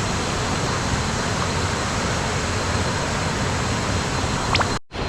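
Steady rush of a forest waterfall's water, heavy in the low end, with a brief drop-out near the end.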